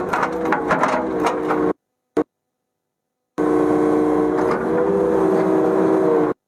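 Kubota KX080-3 excavator's diesel engine running steadily, with sharp knocks and clanks over it in the first second and a half. The sound cuts off suddenly into dead silence about two seconds in, blips once, and resumes about three and a half seconds in before cutting off again near the end.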